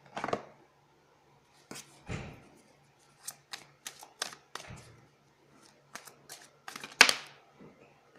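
Tarot cards being handled and drawn from the deck: a run of irregular sharp clicks and taps, the loudest about seven seconds in.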